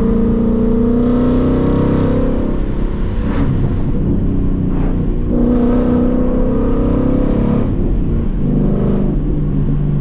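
Ford Mustang GT's 5.0 V8, with a muffler delete and H-pipe exhaust, accelerating hard through the gears of its six-speed manual. The engine's pitch climbs, breaks off for an upshift about three seconds in, climbs again and breaks for another upshift near eight seconds.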